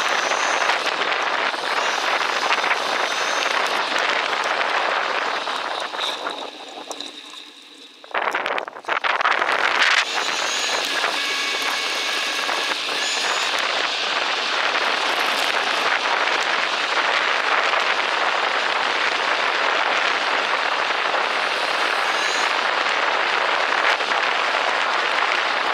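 Bicycle rolling along a woodland trail: a steady rushing hiss of tyres and moving air. It fades for about two seconds a quarter of the way in, then comes back with a few sharp clicks and runs on steadily.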